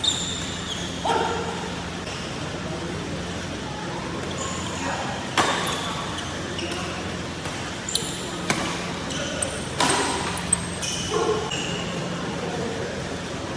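Badminton doubles rally: a string of sharp racket strikes on the shuttlecock and short high squeaks of shoes on the court mat, with a few brief shouts from the players and a steady low hum underneath.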